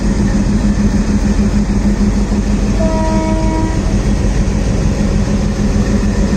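ALCO diesel locomotive chugging as it hauls a passenger train, a loud steady rumble with a pulsing low beat. A brief horn note of under a second sounds about three seconds in.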